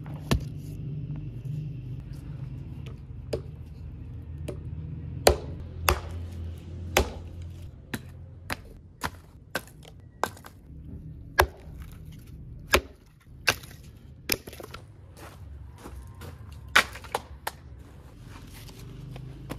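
Hatchet chopping and splitting firewood into kindling: a long series of sharp, irregularly spaced wooden chops and cracks.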